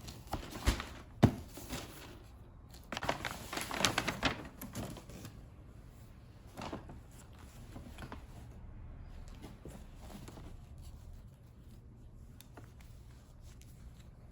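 A few sharp knocks and clatters of tableware being handled on a table at a meal, mostly in the first five seconds, then only faint room background.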